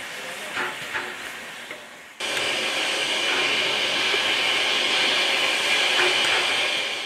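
Steam hissing loudly and steadily from the standing Stanier Princess Coronation class Pacific 46233 Duchess of Sutherland, starting abruptly about two seconds in, with no exhaust beats. Before it, only quieter background with a few faint voices.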